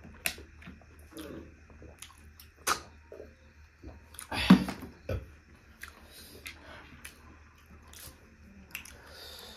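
Eating snail curry: chewing and mouth sounds with a few sharp clicks, and a louder noisy burst about four and a half seconds in.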